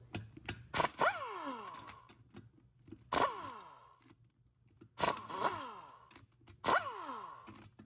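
Air ratchet running out long Allen bolts in short trigger bursts, about six in all, each ending in a falling whine as the air motor spins down.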